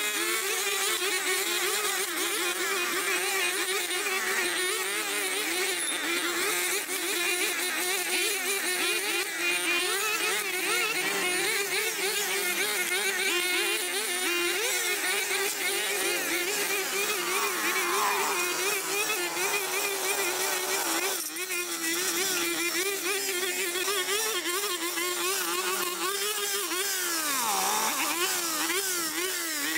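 Petrol brush cutter running as it cuts dense overgrown grass. Its engine note wavers steadily and dips sharply in pitch twice, about halfway through and near the end, as the load comes on, then picks back up.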